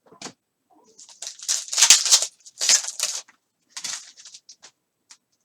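Trading cards and their packaging being handled: a run of papery rustling and sliding strokes over about two seconds, then a few lighter rustles and clicks.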